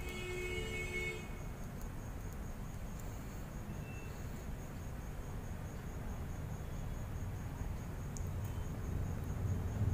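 An insect chirping steadily in high, even, rapid pulses. A short horn-like toot sounds in the first second, over a low rumble.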